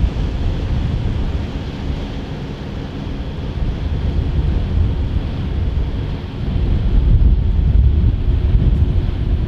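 Wind buffeting the microphone: a gusty low rumble that grows louder about two-thirds of the way through.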